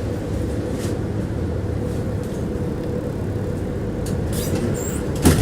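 A tram running along its line, heard from inside the car. There is a steady low rumble and a steady hum, with one sharp knock near the end.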